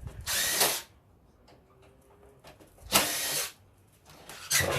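Cordless drill-driver run in three short bursts of about half a second each, undoing the screws and brass standoffs that hold a computer motherboard.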